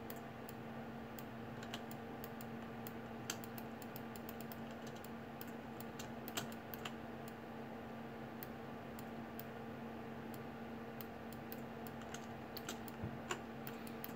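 Faint, irregular clicking of a computer keyboard and mouse while a 3D model is sculpted, over a steady electrical hum.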